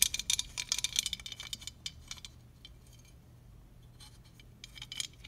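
Light clicks and clinks of a Japanese plane blade, a veneer spacer and a back-edge sharpening gauge being handled as the spacer is seated in the gauge's slit. The first two seconds hold a quick run of clicks, then it goes quiet, and a few more taps come near the end.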